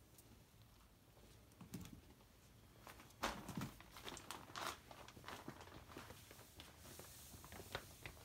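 Faint crinkling and rustling with scattered small clicks, thickening into a cluster of louder crackles about three to five seconds in.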